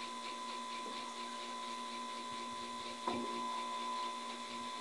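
Mini solid-state Tesla coil kit buzzing steadily with a screwdriver tip held near its top terminal, with one sharp crackle about three seconds in as a spark jumps.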